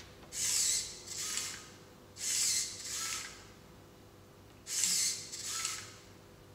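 Small servo motors in a robotic bionic hand whirring in three pairs of short bursts as the fingers close and open.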